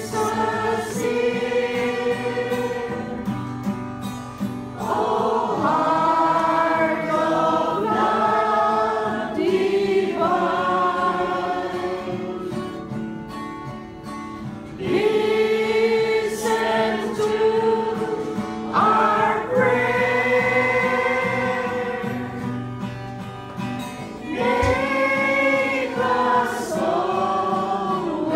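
A small group of people singing a hymn together, in long held notes with short breaks between phrases.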